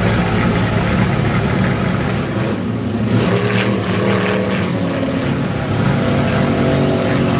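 Inboard racing hydroplanes of the 5-litre class running flat out on the water: a steady, loud engine drone whose pitch shifts about three seconds in.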